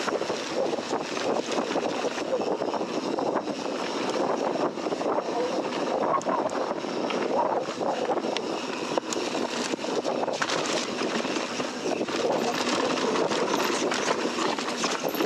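Mountain bike rolling fast down a dirt singletrack: a steady rush of tyre and wind noise, with frequent sharp clicks and rattles from the bike over bumps.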